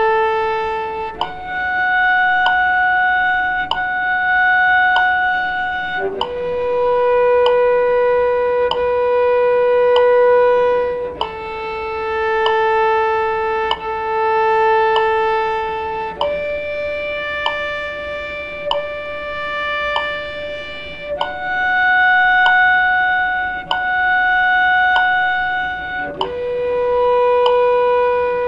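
Cello playing long held notes, each sustained about five seconds before moving to a new pitch, with a light tick about once a second.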